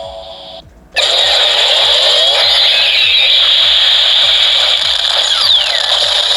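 Kamen Rider Decade K-Touch toy playing an electronic sound effect through its small speaker. A harsh, buzzing burst of noise starts suddenly about a second in and holds steady, with a falling sweep near the end.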